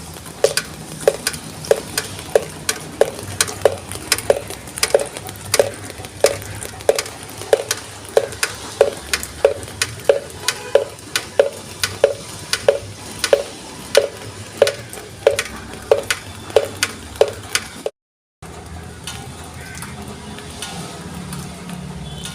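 Steady rain with a regular drip of water plinking into a vessel, about two to three drops a second, each with a short ringing tone. The drips stop at a cut about 18 seconds in, leaving only the steady hiss of rain.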